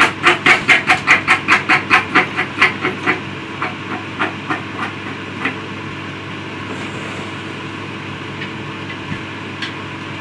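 Record Power SABRE-250 bandsaw's wheel and blade turned by hand, ticking evenly about five times a second and then slowing and fading as the wheel coasts to a stop about five seconds in. The hand spin checks that the blade tracks and runs cleanly.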